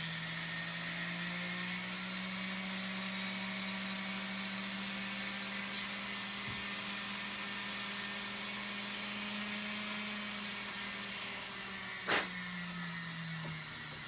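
Flex-shaft rotary tool with a small round burr running at a steady speed, grinding into a vulcanized silicone rubber mold. About twelve seconds in there is a click, and the motor's pitch falls as it winds down.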